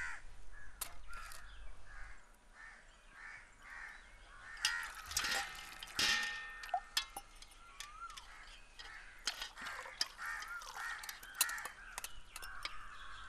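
Crows cawing over and over, with a few sharp clinks and knocks, the loudest about five to six seconds in.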